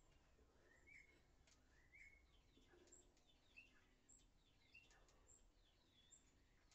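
Near silence with faint birds chirping: short calls about once a second at first, then a busier run of quicker, higher chirps.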